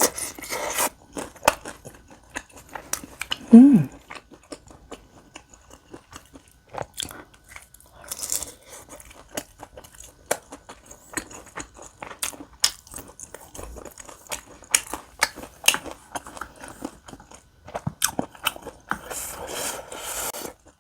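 Close-miked eating sounds: chewing and biting on spicy tteokbokki rice cakes and beef large intestine (daechang), a run of short wet clicks and smacks.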